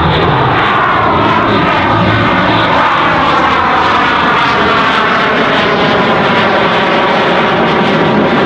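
Eurofighter Typhoon's twin EJ200 turbofan jet engines in a loud, steady roar as the fighter turns overhead, with a slowly sweeping, phasing tone as it moves.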